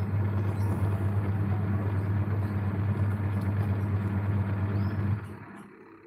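Washing machine wash motor running with a steady low hum as it turns the pulsator. It winds down about five seconds in, as the mechanical timer stops it before it reverses direction.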